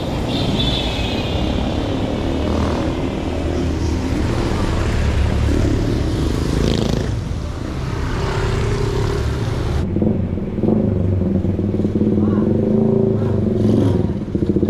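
Motor traffic on a wet street: vehicles passing with tyre hiss, which cuts off suddenly about ten seconds in. After that a nearby motorcycle engine runs with a steady hum.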